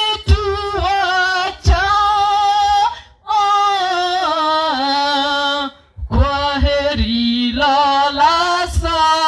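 One voice singing a Swahili shairi (sung poem) as an elegy, in long held, wavering notes, breaking briefly for breath about three and six seconds in.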